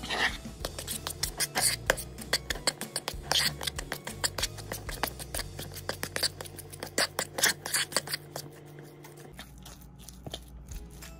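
Metal spoon mashing and stirring hard-boiled egg yolks with mayonnaise in a plastic bowl: a rapid run of scraping clicks against the bowl that thins out about nine seconds in.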